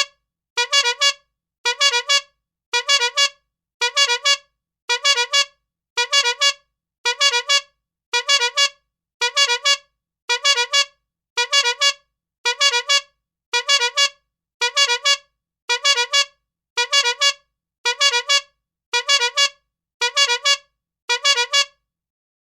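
Rubber-bulb bike horn (clown horn) squeezed again and again, giving quick double honks about once a second. The honks stop near the end.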